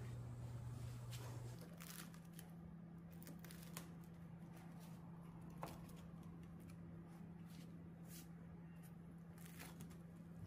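Faint crisp rustling and crackling as a chef's knife cuts through grilled mutabbaq flatbread and the parchment paper under it, with a few light clicks. A low steady hum runs underneath and steps up in pitch about a second and a half in.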